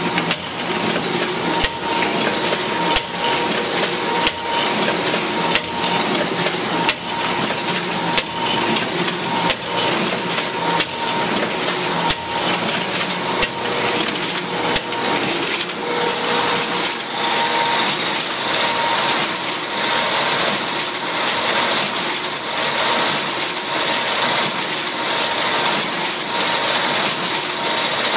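Duplo twin-tower paper collator and bookletmaker running, feeding sheets: a steady mechanical whirr of rollers and belts with frequent sharp clicks.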